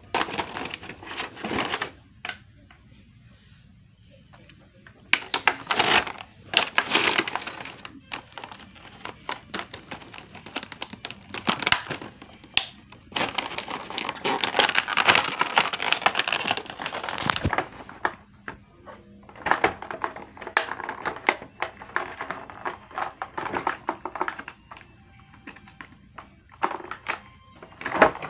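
Clear plastic toy packaging crinkling and crackling as it is handled and pulled open, with sharp clicks, in bursts of a few seconds with short pauses between.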